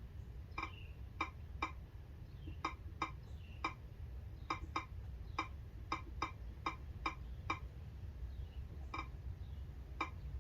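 Key-press clicks from a tablet's on-screen keyboard as an email address is typed: about seventeen short, identical clicks at an uneven typing pace, sparser near the end, over a steady low hum.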